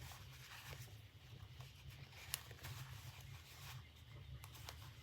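Near silence: a low steady hum with a few faint, short clicks, the clearest about two seconds in.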